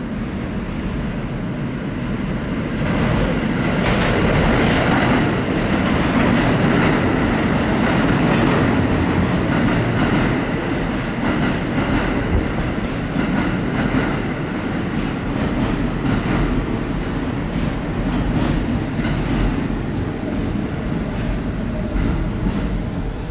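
New York City subway train running past at speed through an underground station: a loud rush of wheels on rails that builds up about three seconds in, crossed by repeated clicks from the wheels.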